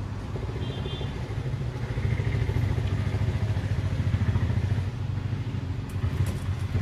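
An engine running steadily at a low, even speed, a low hum made of fast regular pulses. A few light clicks sound near the end.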